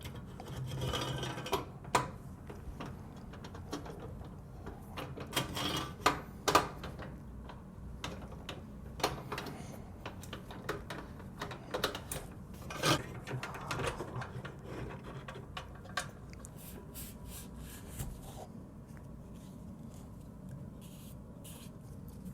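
Computer hardware being handled and worked on: irregular clicks, light knocks and rubbing of metal and plastic parts, loudest about two, six and thirteen seconds in.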